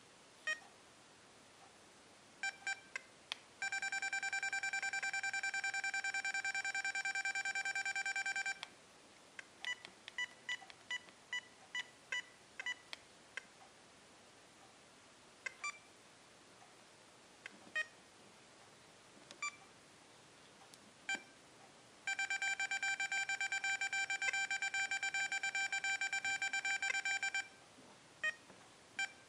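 XP Deus metal detector remote control beeping as its buttons are pressed through the settings menus: many short single beeps, and twice a steady tone held for about five seconds.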